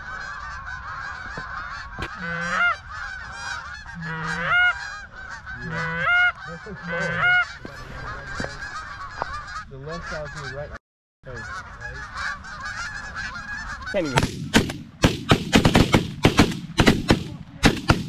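Canada geese honking as they come in, then about fourteen seconds in a rapid volley of shotgun blasts from several shooters, a dozen or so shots in about four seconds.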